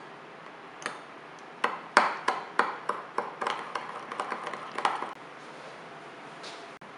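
Metal spoon clinking against the inside of a small ceramic bowl while stirring sugar into dragon fruit juice: one clink about a second in, then a quick run of ringing clinks, about three a second, that stops after about three seconds.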